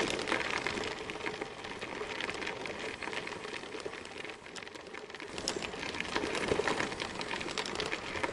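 Bicycle tyres rolling over a gravel path, a steady crunching crackle of small clicks that eases off briefly in the middle.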